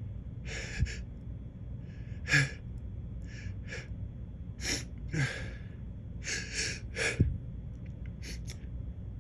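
A man's sharp, catching in-breaths as he builds toward a sneeze that doesn't come: false starts. There are about ten short breathy gasps, some in quick pairs, the loudest about two and seven seconds in.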